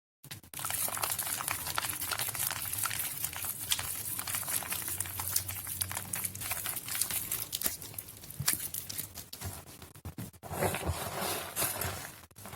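Soaked Nuvo bar soap being squeezed and crushed by hand: a dense run of small wet crackles and squishes.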